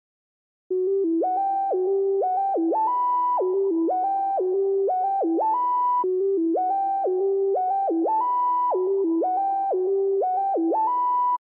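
Synthesizer melody: a single line of held notes stepping up and down, with a buzzy hiss beneath, its phrase played twice. It starts after a short silence and cuts off abruptly near the end.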